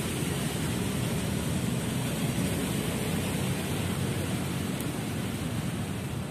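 Steady, even rushing noise of an open-air urban lakeside, with no distinct events in it.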